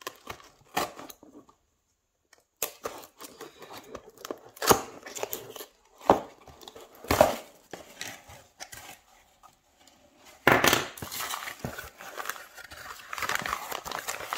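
A small knife slitting packing tape along a cardboard box, then the box being opened: irregular scrapes, clicks and cardboard rubbing. From about ten seconds in, packing peanuts and paper packing rustle and crinkle more steadily.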